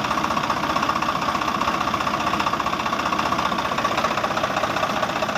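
Small motor of a homemade mini machine running steadily with a rapid, even rattle.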